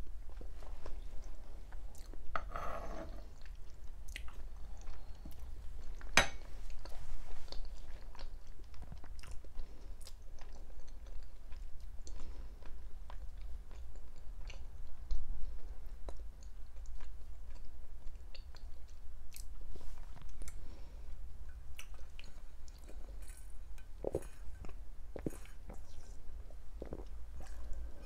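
Close-miked chewing and mouth sounds of someone eating dolma (stuffed vine leaves and stuffed vegetables), with many small clicks and smacks scattered throughout. There is one sharper, louder click about six seconds in, over a steady low hum.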